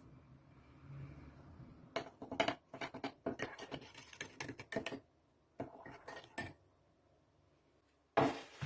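Kitchenware knocking and clinking: a quick run of small clicks and taps for about three seconds, a few more a little later, then one louder clatter near the end.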